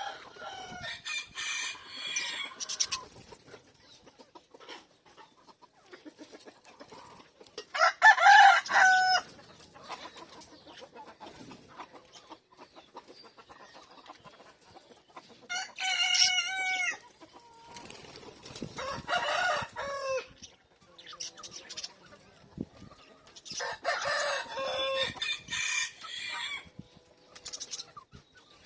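Five loud, drawn-out bird calls a few seconds apart, each lasting a second or two, with fainter chirping between them.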